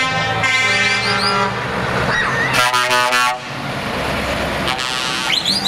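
Truck air horns sounding as the trucks drive off: a chord of steady horn tones at first, then one loud blast about three seconds in that cuts off sharply. Short rising high whistles come twice, over the low running of heavy diesel truck engines.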